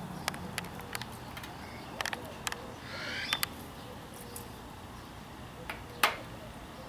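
Water dripping and splashing in scattered small clicks as an inflated bicycle inner tube is squeezed underwater to check a fresh patch for leaks. A brief high chirp about three seconds in, and the sharpest splash about six seconds in.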